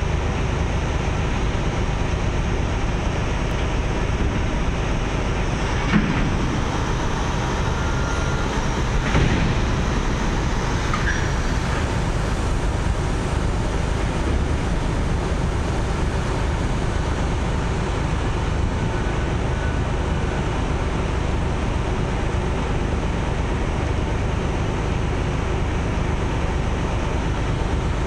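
Steady low rumble of vessel engines with the wash of water, even in level throughout, broken by two brief knocks about six and nine seconds in.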